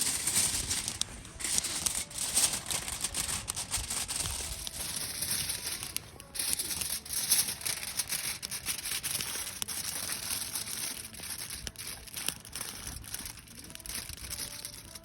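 Crinkling and crumpling as a fish boat's wrapping is folded up at the sides and pinched shut by hand. Irregular crackles run on throughout.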